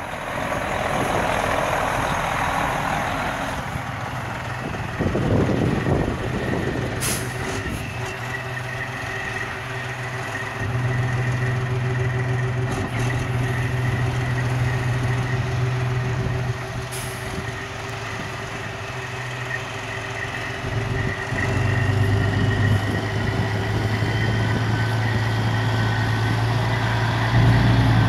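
Volvo semi-truck tractor's diesel engine running as the truck drives slowly across snow, its low note growing louder about eleven and twenty-one seconds in, with a faint steady whine above it. Two short sharp hisses come about seven and seventeen seconds in, and wind buffets the microphone over the first few seconds.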